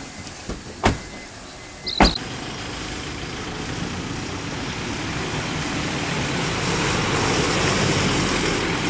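Two SUV doors slamming shut about a second apart, then the SUV pulling away and driving past, its engine and tyre noise building steadily to a peak near the end.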